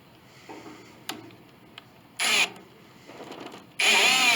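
A brass agraffe being unscrewed from the cast-iron plate of an 1867 Chickering grand piano. There is a click about a second in and a short scrape a little past two seconds, then near the end a loud, steady whine begins.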